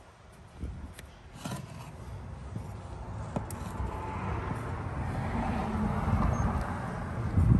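Handmade steel knife slicing through a worn cloth in short quick cuts. A steady rumbling noise swells from about halfway and is loudest near the end.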